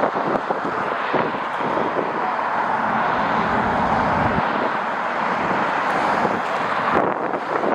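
Jet airliner engines running with a steady roar, while gusty wind buffets the microphone.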